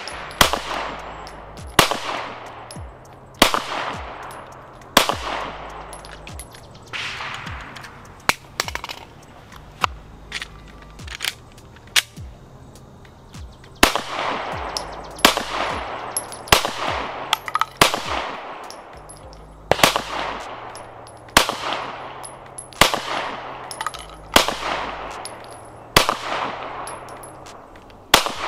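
A Glock pistol firing a steady string of single shots, about one every second and a half, with a couple of short pauses. Each report trails off in a brief echo.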